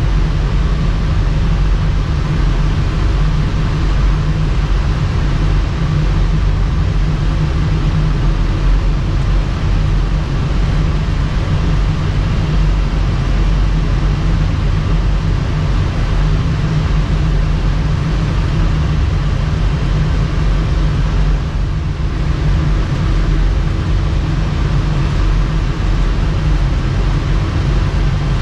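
Cabin noise on the flight deck of an Airbus A319 taxiing: a steady low rumble from the engines at taxi idle, with a faint hum over it.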